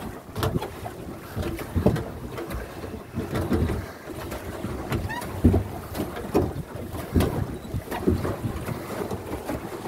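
Pedal boat underway: its pedal-driven paddle wheel churns the water in uneven pulses about once a second, with wind buffeting the microphone.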